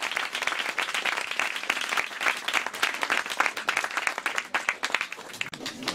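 Small audience applauding, many hands clapping at once; the applause thins out near the end.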